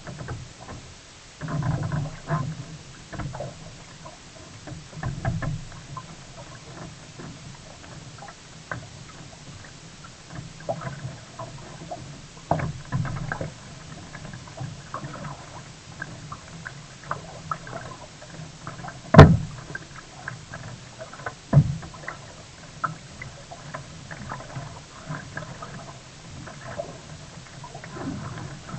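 Sea kayak being paddled, with uneven splashing and sloshing of water from the strokes. Two sharp knocks come about 19 and 21 seconds in, the first being the loudest sound.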